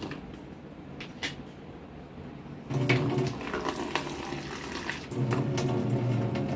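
A couple of light clicks, then water starts running into a container about two and a half seconds in, growing louder a couple of seconds later: water being poured out for a thirsty pigeon to drink.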